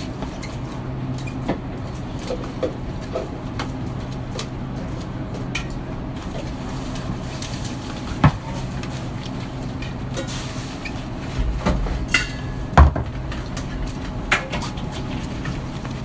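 Coffee-shop back-counter room sound: a steady machine hum under scattered clicks, knocks and clatter of things being handled, with the two loudest knocks about eight and thirteen seconds in.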